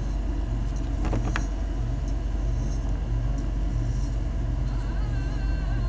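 A steady low rumble with a pulsing low hum, and a couple of faint clicks about a second in. Faint steady tones of music come in near the end.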